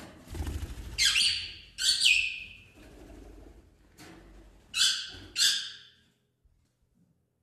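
Pet birds giving four loud, harsh calls of about half a second each: two about a second apart near the start and two more close together about five seconds in. A low rumble of handling noise runs under the first calls.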